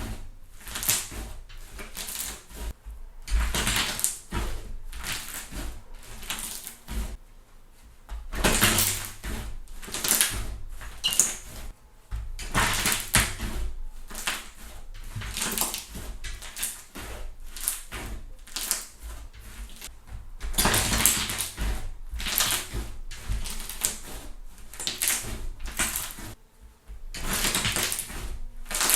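Hands squishing, stretching and pressing a thick fluffy slime, which crackles and pops loudly as air pockets burst, in repeated bursts every second or two.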